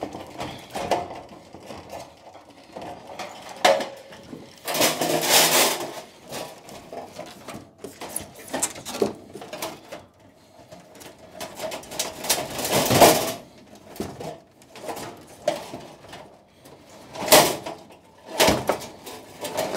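Plastic and metal parts of a lab incubator being handled and pulled apart during dismantling: irregular scraping, rustling and clattering. The loudest bouts come about five seconds in and about thirteen seconds in, with shorter ones near the end.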